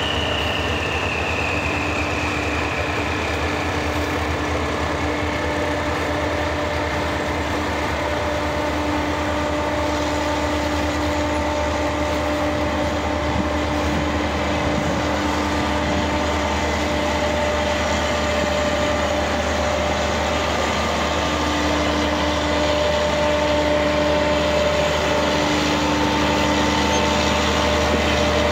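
Eastern & Oriental Express pulling slowly out, its coaches rolling past: a steady droning engine hum over a low rumble. A high whine at the start falls in pitch and fades over the first few seconds.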